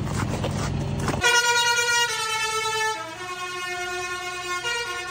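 A low engine rumble cuts off abruptly about a second in. A slow run of long held, pitched notes follows, stepping down and back up in pitch like a tune, over a quiet background.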